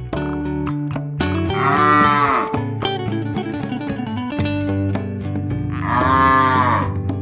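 A cow mooing twice, each call about a second long, rising then falling in pitch, over background guitar music.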